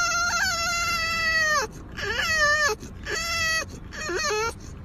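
French bulldog whining in high, drawn-out cries that sound almost like a crying baby: one long wavering cry, then three shorter ones about a second apart.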